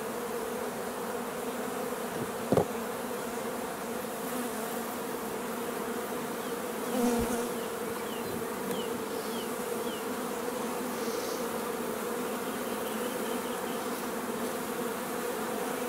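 Honeybee colony buzzing steadily in an open hive, a even hum that holds throughout. A single sharp click about two and a half seconds in.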